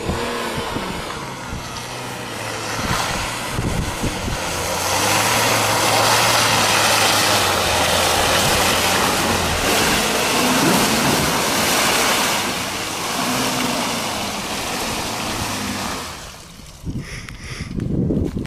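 Jeep Grand Cherokee WK2's diesel engine pulling hard through deep mud, with the tyres churning and a loud rushing noise over it. The rushing swells in the middle and drops away sharply near the end.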